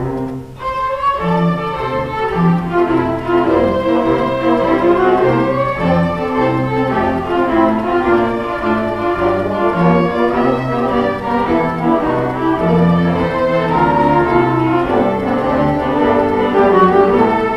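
String orchestra of violins and cellos playing a classical piece, with held bowed notes over a steady low line; a short break about half a second in before the music goes on.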